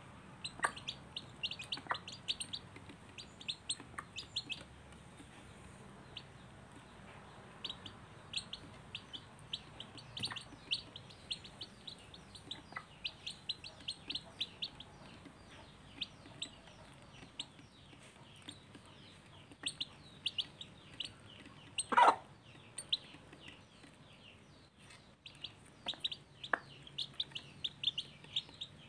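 Domestic chicks peeping constantly, a rapid stream of short high cheeps as they feed beside the hen. A few short lower sounds are scattered through it, and one loud, sharp sound comes about three-quarters of the way through.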